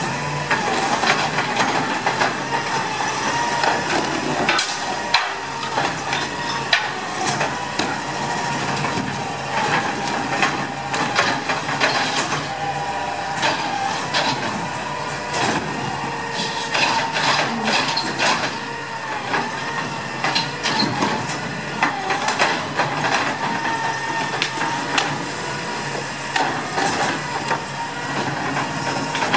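2016 CNG Autocar ACX garbage truck with a Dadee Scorpion automated side-loader working its arm at the carts: a steady, wavering whine over the running truck, broken by repeated knocks and clatter.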